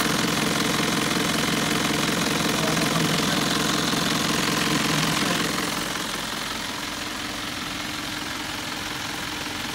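Mitsubishi 4M40 four-cylinder diesel in a Nissan Civilian bus idling with a rapid, even knock, heard close up at the open engine bay. About halfway through it drops in level and sounds more distant.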